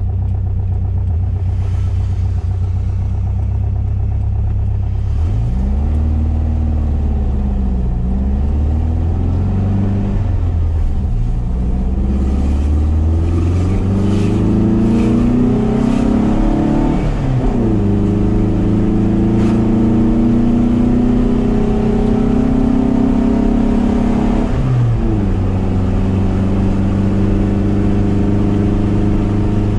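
1973 VW SP2's air-cooled flat-four with dual 40 carburettors and stainless exhaust, heard from inside the cabin while driving. It runs steadily at first, then its pitch climbs and drops back several times as the car accelerates and shifts up through the gears, with clear drops about two-thirds of the way in and again near the end. It then settles to a steady cruising note.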